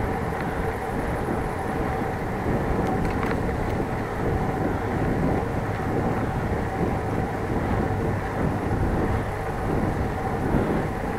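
Steady riding noise of a moving bicycle: wind on the microphone and tyre rumble on the asphalt cycle path.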